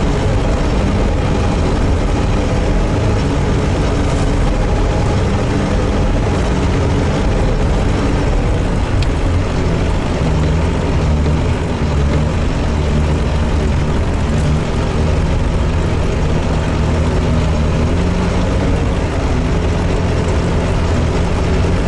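Engine of an all-terrain vehicle running steadily under way, a loud, even low drone that hardly changes.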